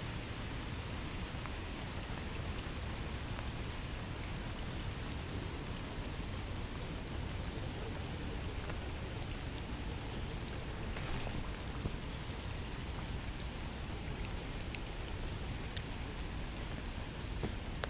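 Heavy rain falling steadily, an even hiss with a few faint clicks.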